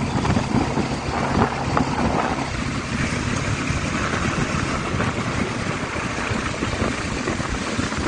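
Motorcycle engine running steadily under heavy wind rush over the microphone of a moving bike.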